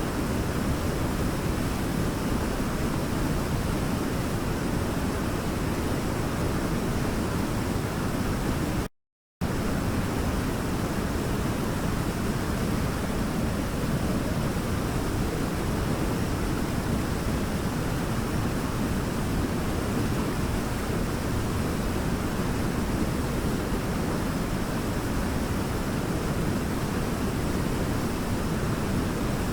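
Waterfall rushing steadily, a dense even roar of falling water, which cuts out completely for about half a second about nine seconds in.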